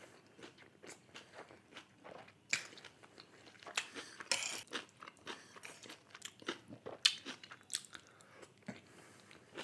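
Mouth sounds of a person chewing and biting chilli chicken momos: irregular sharp clicks, sparse at first and louder and more frequent from about two and a half seconds in.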